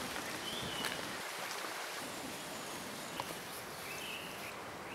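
Steady watery hiss of wet native bush, with three short bird chirps and a couple of light clicks.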